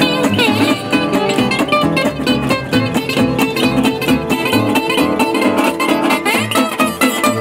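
Slide guitar on a resonator guitar playing a bluesy line, its notes gliding in pitch near the start, over plucked upright bass.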